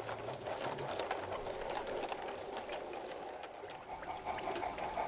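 Model goods train rolling along garden railway track: a steady rattle of wagon wheels with many fine clicks.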